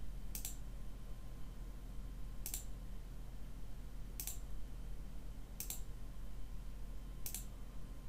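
Computer mouse button clicking five times, one to two seconds apart, over a steady low hum.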